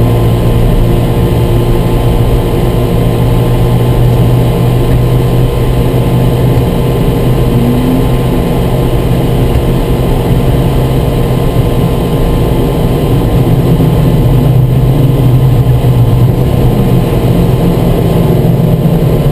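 C5 Corvette Z06 race car's V8 heard from inside the cabin, running steadily at a low, even drone, swelling slightly about fourteen seconds in.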